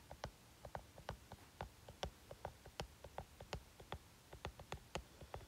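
Faint, irregular clicks of a stylus tip tapping and stroking on a tablet screen while handwriting, several a second, over a low steady hiss.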